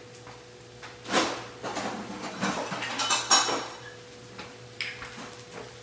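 Metal kitchenware clattering and rattling in a few short bursts, the loudest about one, two-and-a-half and three-and-a-half seconds in, as detachable pan handles are fetched.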